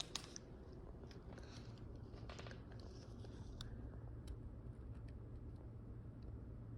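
Faint clicks and rustling from something being handled, mostly in the first few seconds, over a steady low hum.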